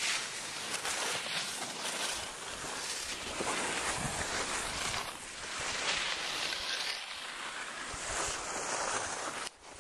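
Skis hissing and scraping over packed snow, mixed with wind rushing over the microphone, swelling and easing in waves. The sound cuts out for a moment near the end.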